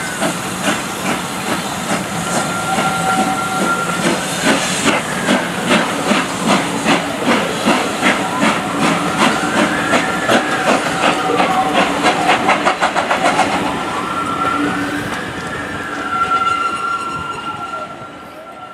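Passenger coaches of a steam-hauled train rounding a curve: wheels clattering over the rail joints in a quick rhythm, with high squealing tones from the wheels that hold steady or glide up and down. The clatter dies away near the end as the last coach passes.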